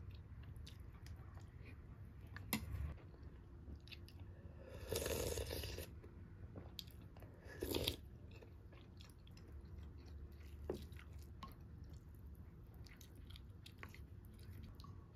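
Close-up eating sounds: chewing and crunching of food, with light clicks of utensils against dishes. Two louder crunches come about five and eight seconds in.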